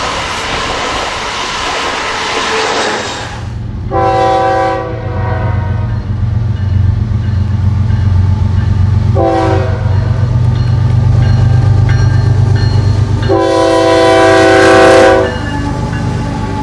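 Florida East Coast Railway diesel freight locomotives approaching and passing with a steady low engine drone that grows louder. The horn sounds three times: a long blast about four seconds in, a short one about halfway, and a long, loudest one near the end. It opens with a few seconds of rushing noise from a passing train.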